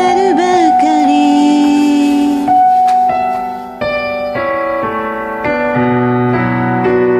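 Piano playing with a singer's voice, which ends its phrase on a long held note about two and a half seconds in; after that the piano plays on alone in slow chords.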